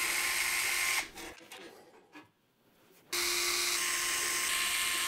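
Compact cordless electric screwdriver running as it backs out the case's bracket screws. One run stops about a second in; after a short pause with light clicks, a second run starts about three seconds in and stops near the end.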